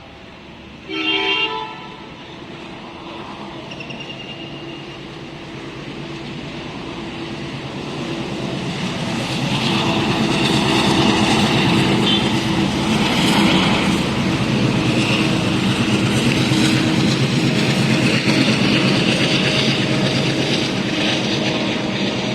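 ALCo WDG-3A diesel locomotive sounding one short horn honk about a second in, then its 16-cylinder ALCo 251 diesel engine chugging as it accelerates past under load, growing louder and staying loud through the second half.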